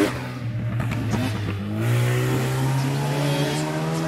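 Off-road vehicle engine running, its pitch climbing about halfway through as it revs up, then holding steady.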